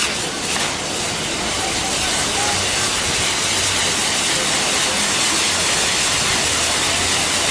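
Fireworks burning with a steady spraying hiss of sparks, strengthening slightly about a second in.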